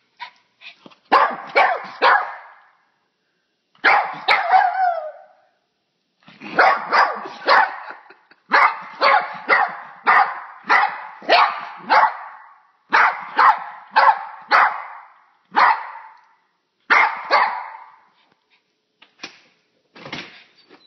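A Yorkshire terrier barking over and over in short, sharp barks, mostly in runs of three or four with brief pauses between them. This is the alarm barking of a small dog frightened by a bug. The barking thins to a few faint barks near the end.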